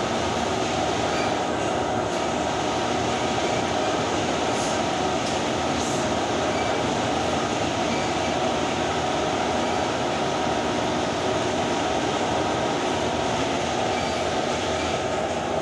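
Industrial laundry machinery running with a loud, steady drone that does not change.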